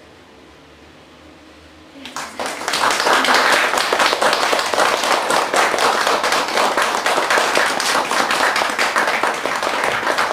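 Small indoor audience applauding: near-quiet room for about two seconds, then clapping breaks out and goes on, dense and steady.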